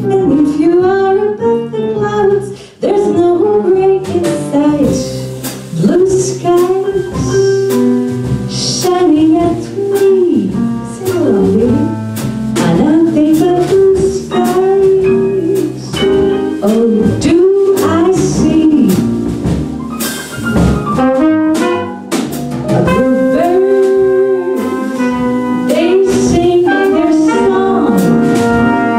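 Female jazz vocalist singing into a microphone, backed by a small jazz combo of piano, upright bass and drums. Near the end the tenor saxophone and trumpet come in.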